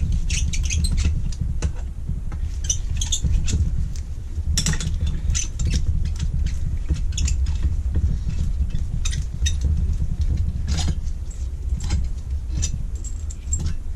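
Small metal carburettor parts and hand tools clicking and clinking as they are handled during disassembly: irregular light taps scattered throughout, over a steady low hum.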